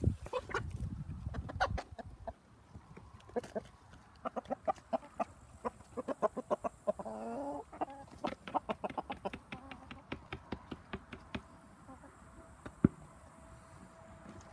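Flock of chickens and a rooster clucking as they peck at scattered kitchen scraps, with many short, quick sounds and a longer rising call about seven seconds in. A single sharp click near the end.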